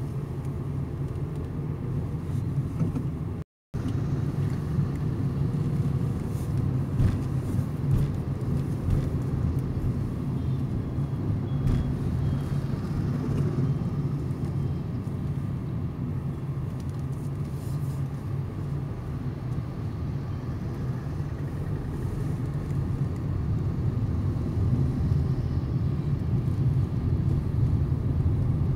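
Car driving on a town road, heard from inside the cabin: a steady engine and tyre rumble with no break in pace. The sound cuts out completely for a split second about three and a half seconds in.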